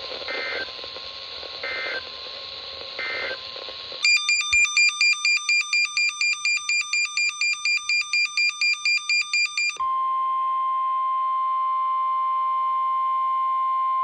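NOAA Weather Radio end-of-message data code: three short warbling bursts over radio hiss. Then an electronic alert beep pulses rapidly, about four beeps a second, for about six seconds. It gives way to the steady 1050 Hz weather-radio warning alarm tone that announces the next alert.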